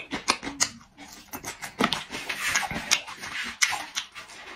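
Close-miked eating sounds: wet chewing and mouth smacking with many short sharp clicks, as a man eats a chunk of cooked meat.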